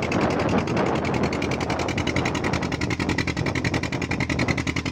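Fishing boat's engine running steadily under way, with a fast, even chugging beat.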